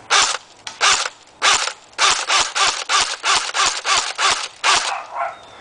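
CYMA AK-47 electric airsoft gun with a metal gearbox firing BBs in rapid single shots, about sixteen of them, spaced out at first and then coming about four a second.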